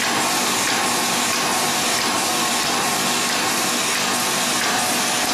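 NJP-series automatic capsule filling machine running: a steady, airy hiss and whir with a faint, steady high whine.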